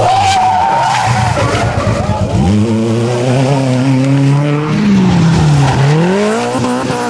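Rally car engine revving hard through a stage. The revs fall at first, then climb and hold, drop again about five seconds in and rise once more as the car pulls away.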